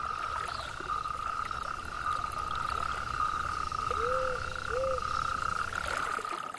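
Chorus of frogs calling at a breeding pond: a steady high trill runs throughout, joined by two short lower calls about four and five seconds in.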